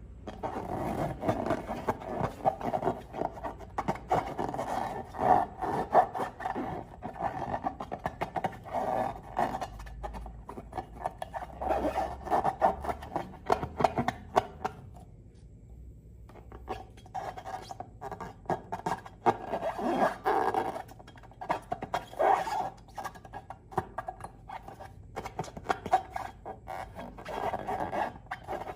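Slime and rubber balloons being squeezed and worked by hand: a dense run of sticky crackles, squelches and rubbing, with a short pause about halfway through.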